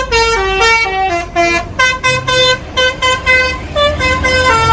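Bus telolet horn: a multi-tone musical horn playing a quick tune of short held notes that step up and down in pitch, with a few brief breaks between phrases.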